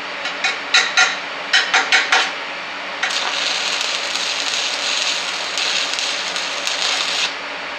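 Stick-welding arc from a 7018 rod at 155 amps on steel box tubing. It starts with a quick run of sharp cracks as the arc is struck and catches. From about three seconds in the arc burns with a steady hiss, which cuts off suddenly near the end when the arc is broken.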